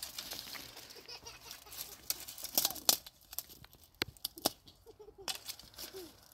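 Dry twigs and leaves crackling and snapping as they are picked up by hand from stony ground, in an irregular run of sharp cracks and rustles, loudest about three seconds in.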